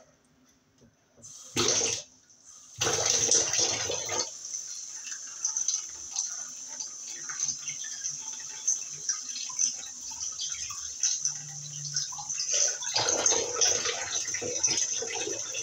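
A brief clatter, then a kitchen tap running into a stainless steel sink from about three seconds in, the stream splashing over a silicone heart mould being rinsed under it. The splashing is louder at the start of the flow and again near the end.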